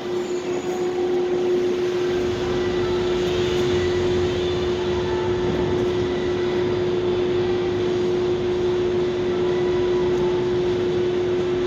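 Steady car-park ambience: a constant machine hum with one held tone over an even rush of noise, unchanging throughout.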